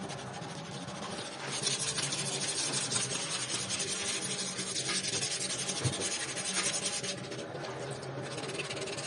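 Sandpaper rubbed back and forth by hand on the steel frame tube of a Honda CG125, a rapid scratchy rasp of strokes that grows louder about a second and a half in and eases briefly near the end. The old black paint is being rubbed down ahead of repainting.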